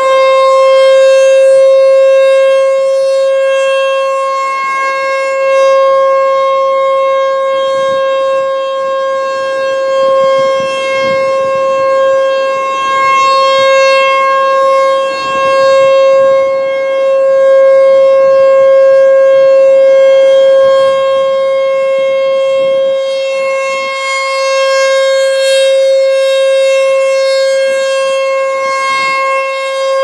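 ASC T-128 rotating electromechanical warning siren sounding its steady Alert signal at full speed: one held tone with no change in pitch, swelling and fading in loudness every few seconds as the horn sweeps round.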